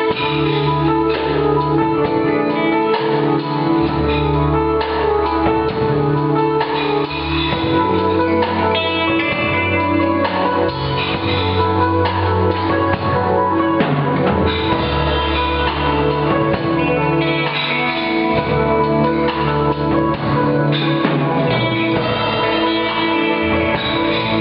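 Live rock band playing: electric guitar over bass and drum kit with a steady beat.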